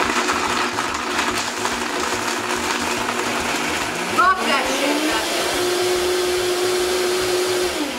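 Countertop blender crushing ice with vodka into a slush, its motor running steadily. About halfway through, its pitch rises and holds higher, then it winds down and stops near the end.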